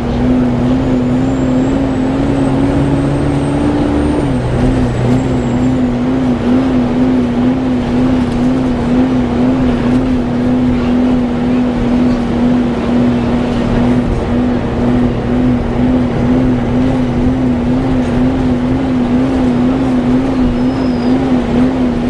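Volvo B7TL bus's engine cooling fan making a vacuum-cleaner-like "weird hoover" whine, heard from inside the bus over the engine and road noise. The whine rises slightly, drops about four seconds in, then settles into a steady tone that warbles about twice a second.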